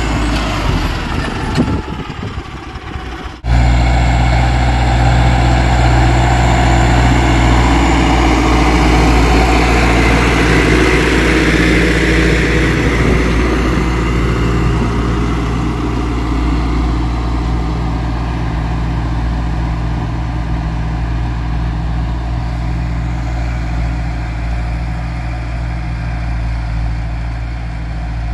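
Ursus 1014 tractor's diesel engine running steadily under load while pulling a mounted plough through soil. The sound thins out briefly about two seconds in and comes back abruptly at about three and a half seconds.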